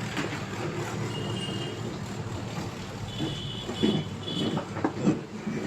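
Steady low rumble of a motor vehicle running, with a few short knocks and brief high beeps in the second half.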